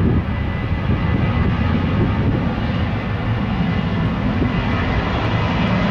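Jet airliner engine noise: a steady, loud low rumble with a faint steady high tone above it.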